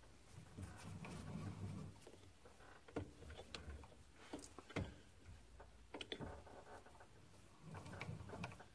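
Faint metallic clicks and knocks from a lathe tool post and slide being handled and moved in by hand, with a low rumble about a second in and again near the end.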